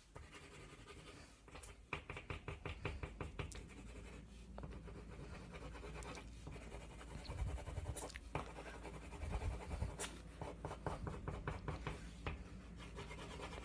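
Colored pencil scratching across drawing paper in quick, repeated shading strokes, laying down dense colour. The sound is faint.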